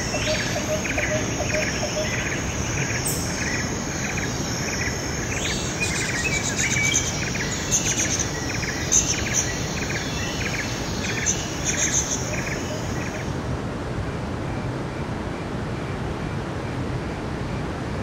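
Steady rush of a mountain stream running over rocks, with a regular series of high chirps, about two a second, over it. The chirping stops about two-thirds of the way through, leaving only the water.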